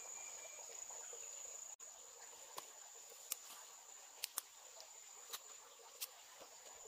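Faint, steady, high-pitched insect chirring, with half a dozen short sharp clicks from about two and a half seconds in.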